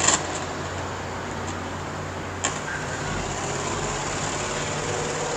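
Steady road traffic noise, with a single sharp click about halfway through.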